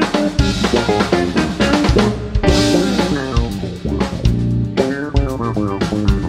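Live instrumental trio of electric guitar, electric bass and drum kit playing a busy passage in an odd time signature, with fast drum hits and quick runs of notes.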